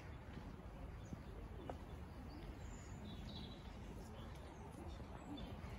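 Quiet outdoor ambience in a large garden: a steady low rumble with a few faint, short bird chirps now and then.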